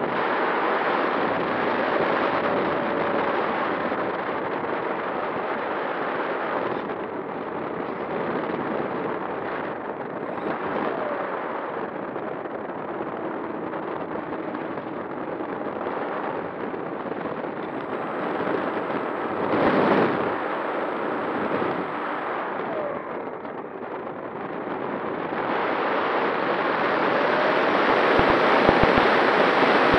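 Wind noise on the onboard camera of a Skua FPV flying wing in flight: a steady, dense rush of air with a faint steady tone underneath. The rush swells briefly about twenty seconds in and grows louder near the end.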